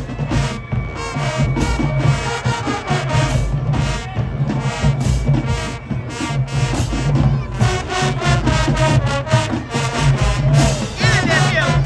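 Middle school band playing an upbeat tune: brass carrying the melody over a steady drum beat, with a sliding pitch near the end.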